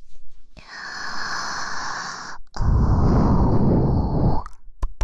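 A woman breathing slowly and close into a microphone: a long breath drawn in, then a longer, louder breath blown out onto the mic, heavy and rushing. A few small clicks near the end.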